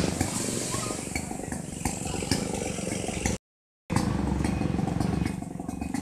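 Steady low rumble of outdoor vehicle and engine noise with a few light knocks, cutting out completely for about half a second just past the middle.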